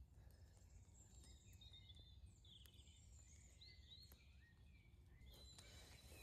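Faint woodland birdsong: several small birds chirping and trilling in short phrases over a low, steady background rumble, with a few faint clicks near the end.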